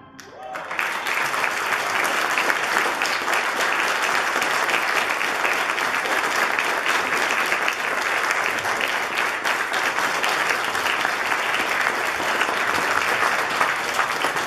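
Congregation applauding: the clapping swells up within the first second and then holds steady and dense.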